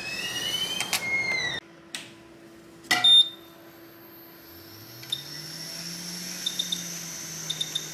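Hot air rework station being set up: a rising whine that cuts off suddenly and a sharp clack about three seconds in. Then the blower starts, with an airy hiss and a hum that rises in pitch and levels off as the fan comes up to speed. Short high beeps from the station's buttons are heard as the air flow is turned down to 50.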